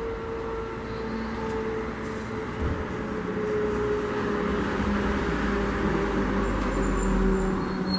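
Road traffic: a passing vehicle's rumble growing gradually louder, with a steady hum whose pitch slowly sinks.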